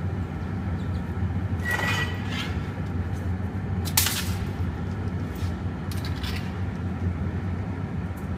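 Steady low hum of the glassworks' furnace and glory-hole equipment. A short metallic clink of hand tools comes about two seconds in, and a single sharp knock about four seconds in as the glass-laden iron is lifted from the bench.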